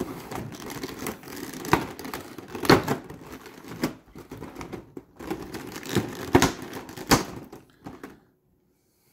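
Clear plastic blister packaging being pulled apart by hand: continuous crinkling with sharp plastic snaps and clicks, stopping about a second before the end.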